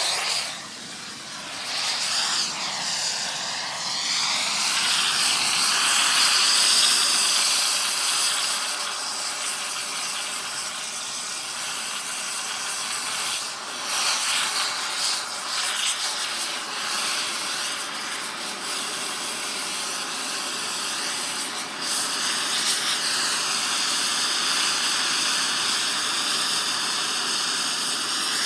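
Air torch flame hissing steadily against metal. The hiss sweeps up and down in pitch for the first few seconds, then runs on with a couple of brief dips.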